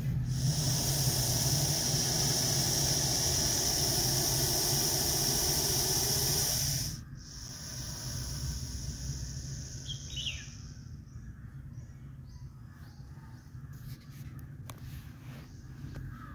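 Russell's viper hissing: a long, loud hiss of about seven seconds, then after a brief break a weaker hiss of about three seconds. A bird chirps once.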